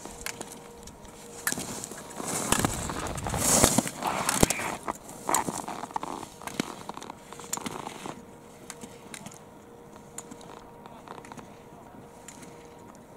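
Slalom skis carving and scraping across packed snow as the racer passes close by, loudest for a couple of seconds before fading away, with several sharp knocks of slalom poles being struck by the skier clearing gates.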